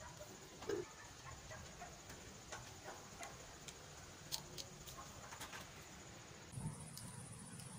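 Faint, scattered light ticks and clicks of hand work, as glue is dabbed onto dried coconut flowers with a thin stick, over a steady faint high-pitched whine.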